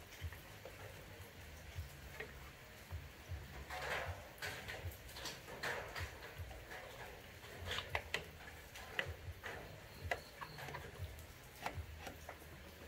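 Small animals moving about, giving faint, irregular light taps and clicks with a few soft rustles.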